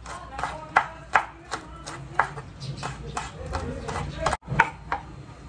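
Kitchen knife chopping green herbs on a wooden cutting board: a run of sharp knocks, about two to three a second, with a split-second drop-out just over four seconds in.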